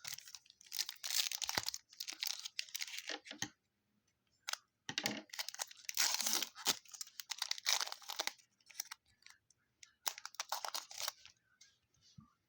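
Plastic and cardboard trading cards being handled: rustling and crinkling in several bursts with short pauses between them, as cards and a plastic sleeve or wrapper are shuffled.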